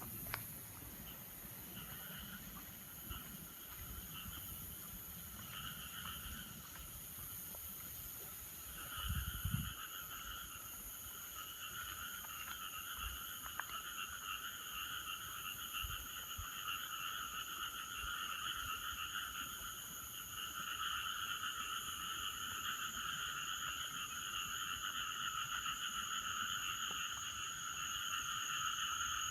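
A chorus of frogs croaking in many overlapping calls, growing louder after about nine seconds, over a steady high insect trilling. A few low knocks, the strongest about nine seconds in.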